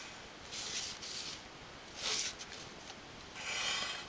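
Graphite pencil scratching across paper as straight lines are ruled along a wooden ruler, in three short strokes.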